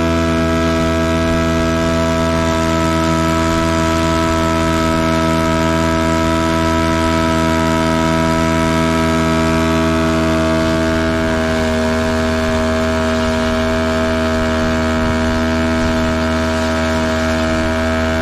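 A model biplane's engine running steadily on the ground with its propeller turning, held in place by hand. Its pitch drops slightly a little past halfway.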